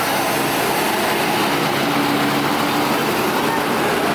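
Loud, steady diesel engine noise from a coach bus pulling out, close by, with a dense rush of engine and exhaust sound.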